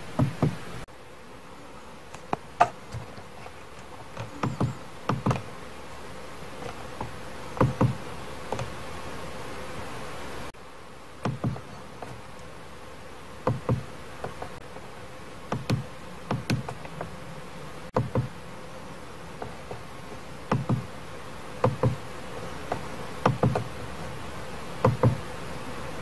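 Steering-wheel buttons of a Mercedes-Benz W212 E-Class being pressed one after another to work through the dashboard menu: short plastic clicks, often in quick pairs, every second or two, over a faint steady hum.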